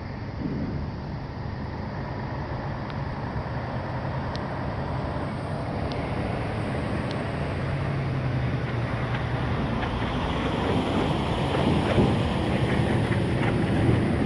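A low, steady rumble that grows gradually louder, mixed with wind noise on the microphone.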